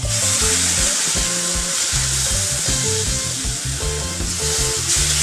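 Milk sizzling loudly as it is poured a little at a time into hot ghee-roasted semolina in a pan and stirred with a spatula. The sizzle starts suddenly, with background music underneath.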